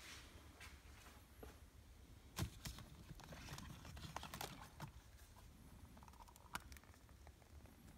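Faint clicks, taps and light scraping of gold foil cardboard lash boxes as a hand pulls one out of a tightly packed row. The sharpest click comes about two and a half seconds in, with a cluster of small taps after it and one more near the end.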